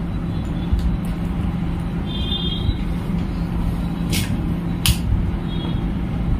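Steady low background hum and rumble, with a few light clicks of a smartphone being handled and two brief faint high tones.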